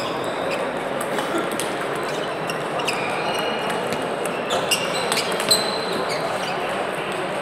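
Table tennis rally: the plastic ball clicks sharply off the bats and the table in quick alternation, over the steady murmur of a busy sports hall.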